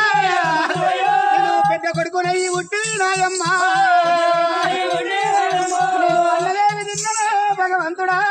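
Male voice singing a Telugu oggu katha devotional folk song in long, wavering held notes, over a steady low drum beat of about three beats a second.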